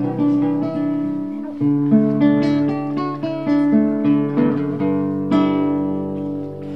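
Acoustic guitar being played, a series of picked notes and chords; the last chord, about five seconds in, rings on and fades.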